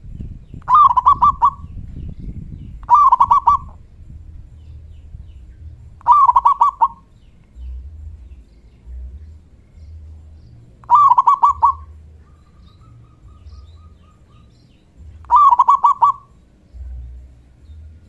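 Zebra dove (perkutut) cooing: five phrases of quick, pulsed coo notes, each under a second long, a few seconds apart.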